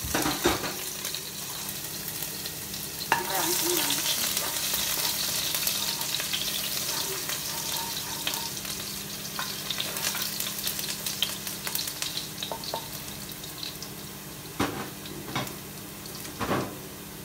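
Minced garlic sizzling in hot oil in a nonstick pot while it is stirred with a spatula. The sizzle slowly dies down, and a few sharp knocks of the spatula against the pot come through, three of them near the end.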